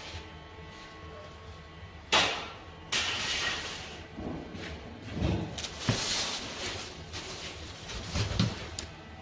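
Metal baking trays and deck-oven parts being handled in a bakery kitchen: two sharp clanks with a scraping tail about two and three seconds in, then several duller thumps and knocks.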